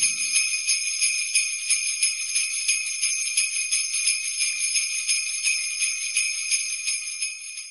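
Jingle bells shaken in a steady rhythm, about three shakes a second, fading out near the end.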